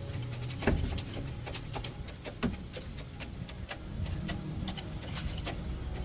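Hand tools working on metal parts: irregular clicks and taps, with two louder knocks, one under a second in and one about two and a half seconds in, over a low hum.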